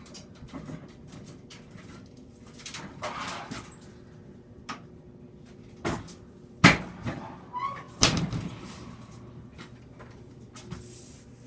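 Scattered knocks and thumps with a shuffle of handling noise; two sharp knocks, about six and a half and eight seconds in, are the loudest.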